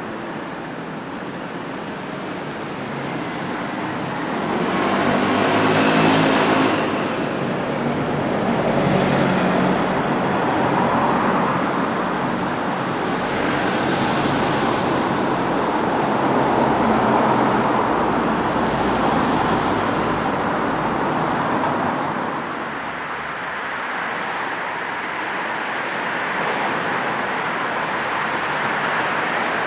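Road traffic ambience: a steady rush of tyres and engines, with vehicles passing one after another, the loudest about six seconds in.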